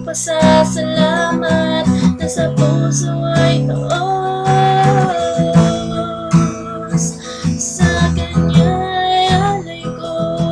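Acoustic guitar strummed in a steady rhythm under a slow melody line that holds long notes, one about midway through.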